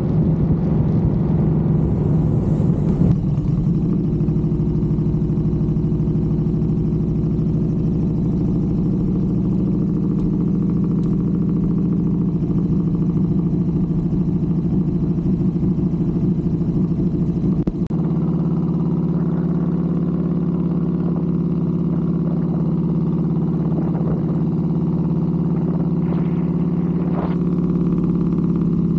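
Motorcycle engine running steadily at cruising speed, heard from the rider's seat. The engine note shifts abruptly about three seconds in and again just before halfway.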